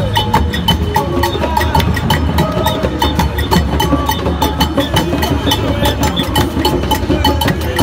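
Music with a quick, steady percussive beat and short repeated melodic notes, over a steady low hum.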